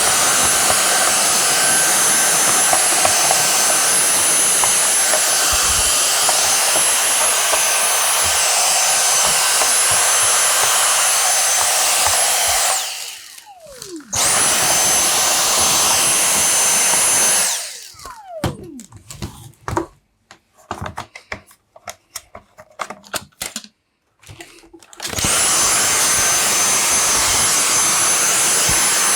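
Dyson cordless vacuum cleaner running with a high-pitched whine, switched off and on by its trigger three times. Each time it stops, the motor winds down in falling pitch. Between runs come plastic knocks and clicks from handling the parts.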